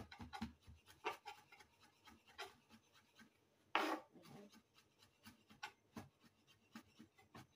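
Kitchen knife mincing garlic on a wooden cutting board: light, irregular taps of the blade on the wood. A brief louder noise comes about four seconds in.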